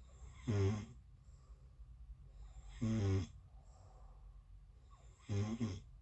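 A sleeping person snoring: three short pitched snores, each about half a second long, coming about every two and a half seconds.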